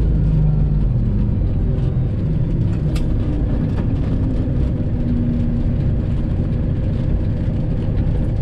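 Semi truck's Detroit Diesel 12.7 engine running steadily, a constant low drone heard from inside the cab, with a single sharp click about three seconds in.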